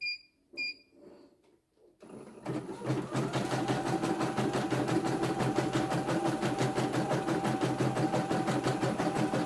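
CNY E900 computerized embroidery machine: two short beeps from its control panel, then about two seconds in the needle mechanism starts up and runs at a slightly faster speed setting, a rapid, even clatter of stitches.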